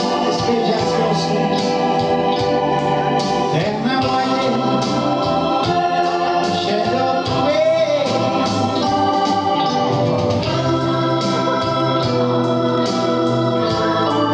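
Live band music led by an organ playing held chords, with drums and cymbals keeping a steady beat underneath.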